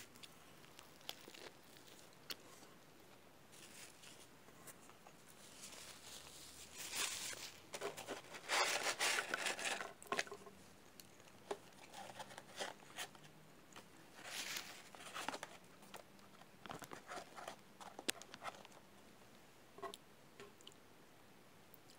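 Paper burger wrapper and paper fries box crinkling and rustling as they are handled, in irregular bursts, loudest and busiest around the middle.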